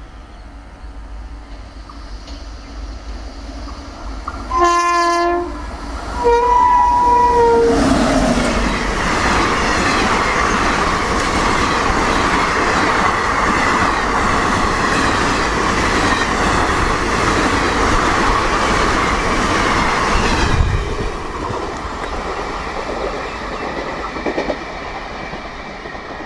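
WAP-7 electric locomotive hauling a superfast express sounds its horn twice: a short blast about four seconds in, then a longer two-tone blast whose pitch drops as the locomotive passes. The coaches then rush past close by at full speed with a rhythmic wheel clatter for about twelve seconds. The noise cuts off sharply as the last coach goes by, leaving a fading rumble.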